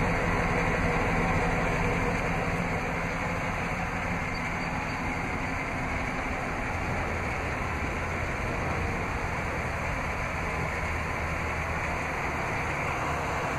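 Chevrolet C3500's Vortec 5.7-litre V8 idling steadily, a little louder in the first couple of seconds.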